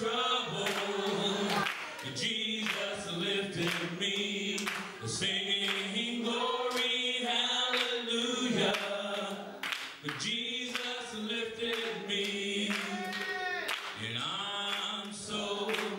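Church choir and congregation singing a gospel song together, with short sharp strokes at intervals.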